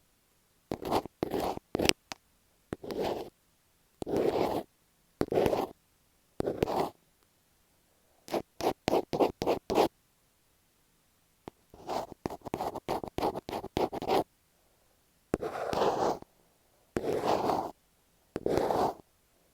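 Scratching and rubbing on masking tape stuck over an earphone microphone, heard very close up. The strokes come one at a time, about half a second each with silence between, and there are quick runs of short strokes around the middle.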